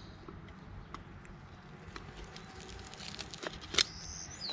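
A camping cook kit being handled: a mesh stuff sack rustling as a small pot is pulled from it, with light clicks and one sharp click near the end. Right at the end a bird starts a run of quick falling chirps.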